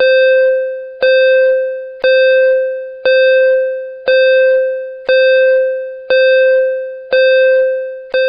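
A bell-like ding struck about once a second, nine times in a row. Each strike is the same pitch and rings out, fading over most of a second before the next.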